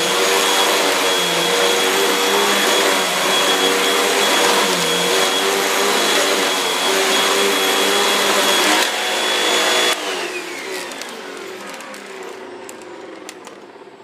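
Hoover WindTunnel 2 Rewind upright vacuum cleaner running steadily with a high whine as it is pushed over carpet. About ten seconds in it is switched off, and the motor's whine falls away as it spins down, with a few light clicks near the end.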